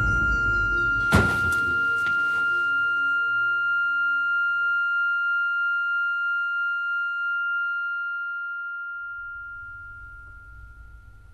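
A single high ringing tone, held and slowly fading away over about ten seconds, with a sharp hit about a second in and lower notes dropping out after about five seconds. A faint low hum comes in near the end.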